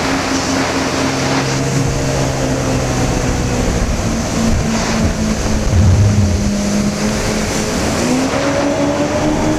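Personal watercraft engine running at cruising speed. Its pitch eases down a little around the middle and rises again near the end.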